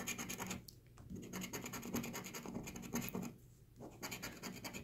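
A coin scraping the coating off a paper scratch-off lottery ticket in quick back-and-forth strokes, pausing briefly twice.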